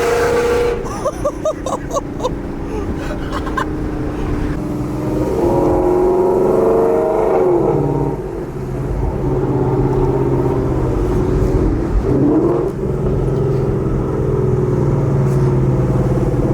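Gen 2 Coyote 5.0 V8 of a Ford Mustang GT running through newly installed long-tube headers, the revs rising and falling a couple of times between steadier stretches.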